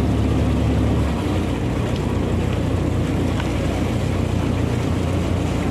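A boat's engine running steadily under the rush of water and wind. About a second in, the deep hum of the engine eases and its note shifts lower in level while it keeps running.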